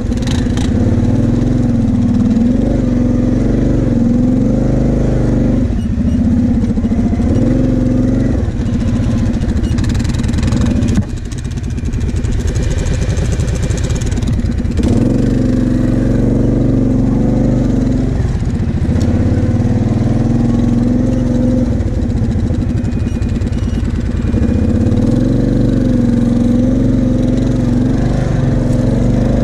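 Kawasaki KFX 700 V-Force quad's V-twin engine running at low speed, its pitch rising and falling as the throttle is worked. About 11 seconds in it drops to a low idle as the quad nearly stops, then picks up again a few seconds later.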